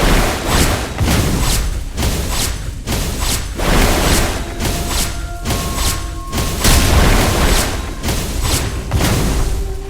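Loud music with a heavy, booming percussive beat about twice a second over a deep rumble.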